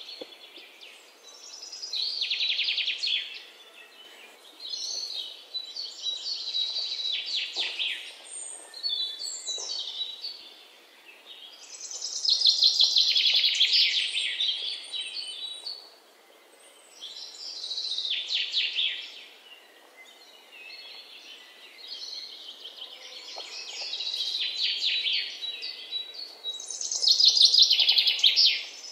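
Pencil scratching on paper in quick back-and-forth shading strokes, coming in bursts of a second or two every few seconds.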